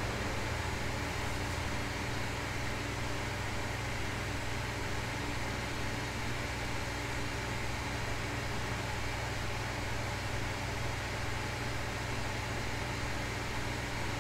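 Steady home office room tone: an even hiss with a low, constant hum underneath, no change throughout.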